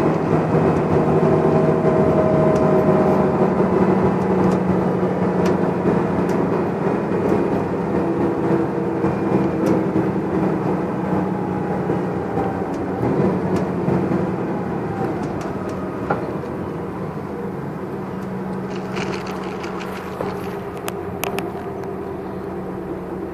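Volvo Olympian double-decker bus heard from a seat inside: its diesel engine and driveline run at road speed with a steady drone, a thin whine and tyre noise. In the last third the sound drops off and quiets as the bus eases off, with a few light rattles.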